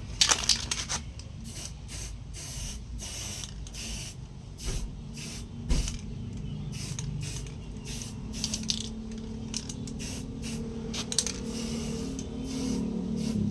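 Homemade coconut grater driven by a washing-machine motor, running with a steady hum while coconut meat is pressed to the spinning grater head, giving irregular rasping scrapes.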